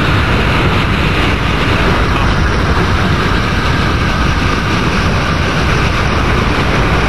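Strong wind near a tornado blowing on the microphone: a loud, steady rush with a deep rumble underneath.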